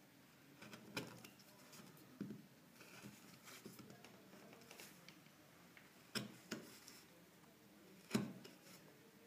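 Hand carving chisel paring and scraping into wood: faint scraping with a few sharp clicks as the blade cuts, the loudest about six and eight seconds in.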